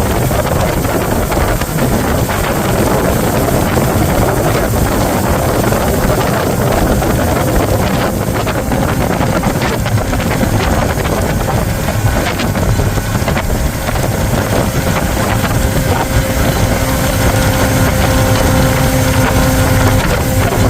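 Motorboat running across the water, with heavy wind buffeting the microphone. About three quarters of the way in, a steady engine hum with a clear tone comes through the rush.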